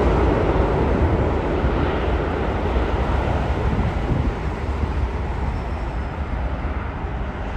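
Jet airliner engine noise: a low, rushing rumble that slowly fades as the aircraft moves away.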